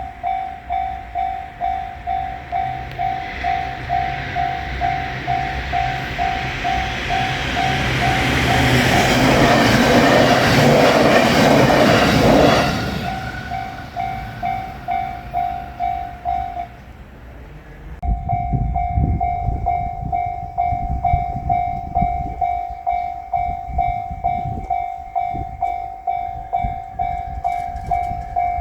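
Japanese railroad crossing bell clanging about twice a second as a train passes over the crossing. The train builds from about seven seconds in, is loudest around ten to twelve seconds and fades by thirteen. The bell drops out briefly near seventeen seconds, then rings on over a low rumble.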